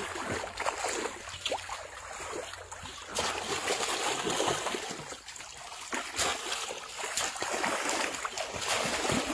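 Irregular splashing and sloshing of shallow muddy water as people wade and grope through it with their hands, a little busier from about three seconds in.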